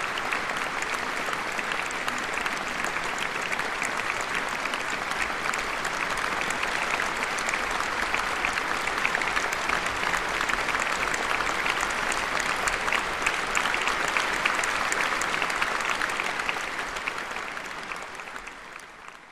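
Large concert-hall audience applauding steadily, the clapping fading away over the last few seconds.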